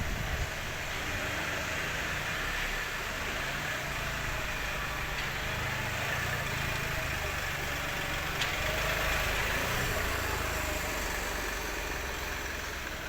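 Truck engine running steadily, a low even rumble.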